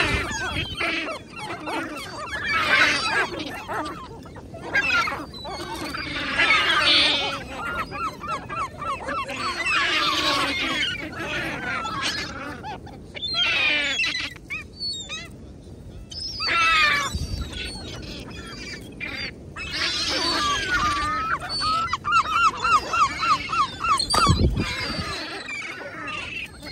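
Seagulls calling over and over, the calls wavering and breaking, with a fast run of repeated notes near the end.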